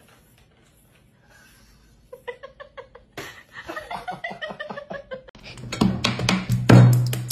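A person laughing in a run of short, quick ha-ha sounds. About five and a half seconds in, loud music with a heavy bass beat starts and is the loudest sound.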